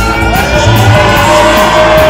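Loud hip-hop dance music with a heavy bass beat. From about half a second in, a long held note arcs over it.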